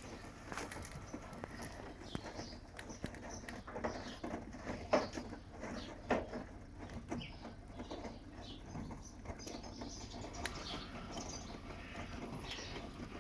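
Washing machine running, its drum turning and tumbling the laundry: an irregular patter of small knocks and clicks with brief squeaks, and two sharper knocks about five and six seconds in.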